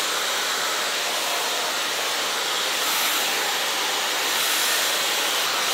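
Dyson Supersonic hair dryer with a diffuser attachment running steadily, a constant airy rush, drying curly hair.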